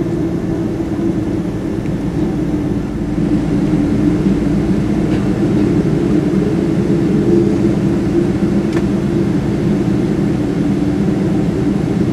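Cabin noise of a Boeing 777-200ER taxiing: the steady drone of its Rolls-Royce Trent 800 engines at taxi power, together with the rolling noise of the airframe, heard from inside the cabin. It grows a little louder about three seconds in.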